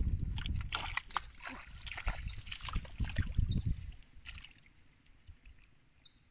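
Hands groping, squelching and splashing in shallow muddy water and soft mud, with dense irregular sloshes for about four seconds, then only a few quieter splashes.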